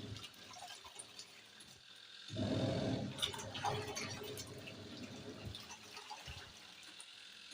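Water sloshing and splashing in the wash tub of a twin-tub washing machine, swelling louder for a second or so a little past two seconds in.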